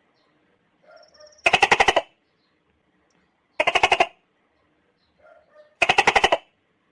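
Juvenile tokay gecko calling: three short bursts of rapid rattling pulses about two seconds apart, each with a fainter short sound just before it.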